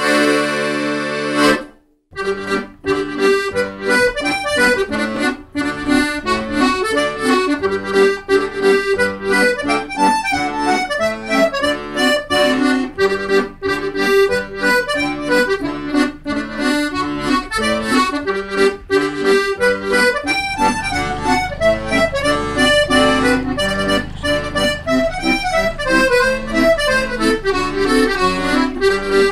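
Accordion music: a held chord, a short break about two seconds in, then a quick run of melody notes over a steady rhythm.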